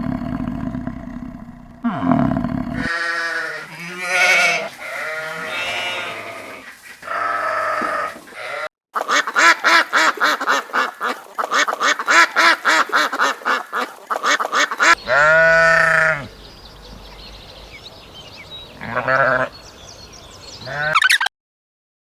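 Goats bleating in a series of separate calls, including a long run of quavering bleats in the middle, after a deep low animal call in the first few seconds.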